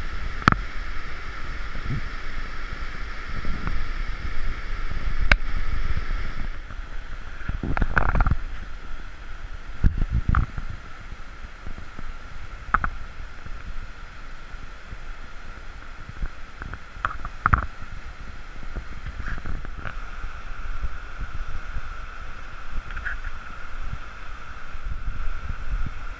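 Steady rushing hiss of swollen whitewater rapids, with a few low thumps on the microphone about 8, 10 and 17 seconds in.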